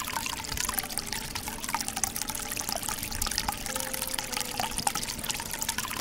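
Many thin streams of water falling from the clear tubes of a small cement tabletop waterfall fountain into its pebble-filled basin: a steady trickling and splashing with many small drops.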